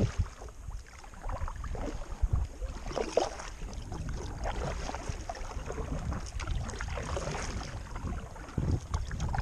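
Wind rumbling on the microphone, with scattered light knocks and clatter.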